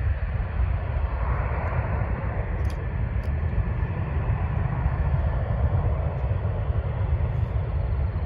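Jet airliner engines at takeoff power, a steady distant rumble as the aircraft climbs away.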